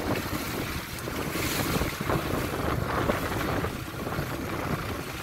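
Wind buffeting the microphone over water splashing and rushing against the hull of a small fibreglass boat under way on choppy water.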